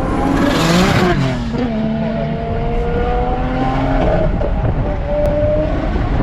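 RB30 straight-six in a Nissan S14 Silvia accelerating, heard from on board: the engine note climbs, drops at a gear change about a second in, climbs slowly, drops again about four seconds in and climbs once more.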